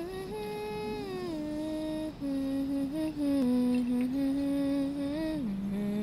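A person humming a slow tune: long held notes that slide from one pitch to the next, dropping to a low final note near the end.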